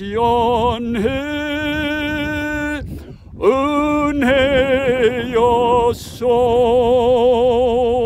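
A solo voice singing a Korean worship song, drawing out a string of long held notes with wide vibrato. There are short breaks for breath about three and six seconds in.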